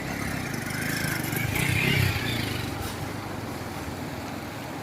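Motorcycle engine running, getting louder for a moment about two seconds in, then settling again.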